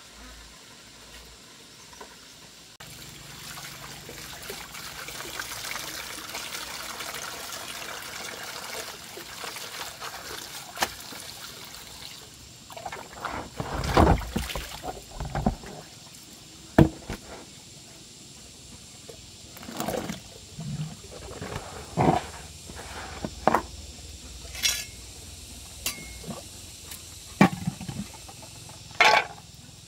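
Water running steadily for several seconds, then a string of separate knocks and clatters, a few of them sharp and loud.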